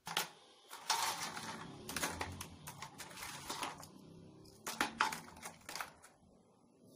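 Crisp sugar-coated maida sticks (shakkarpara) clattering and scraping against a steel plate as a hand stirs them: a dry, crackly rattle in bursts that shows the sugar coating has set hard and the sticks are crisp. The rattling stops about six seconds in.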